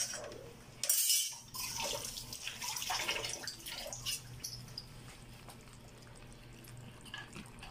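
Live blue swimmer crabs shifting in an aluminium pot: scattered small clicks and light crackling, with a brief louder scrape about a second in, over a faint steady hum.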